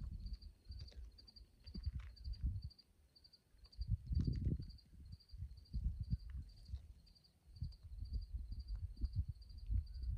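A night insect chirping steadily, a high pulsed chirp repeating about two and a half times a second. Under it are irregular low rumbling gusts of wind buffeting the microphone.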